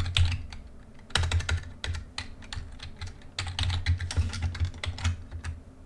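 Typing on a computer keyboard: quick runs of keystrokes in several short bursts, with brief pauses between them.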